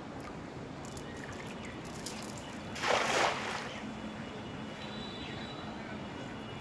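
A cast net landing on the water about three seconds in: one short splash, about half a second long, as the weighted net hits the surface.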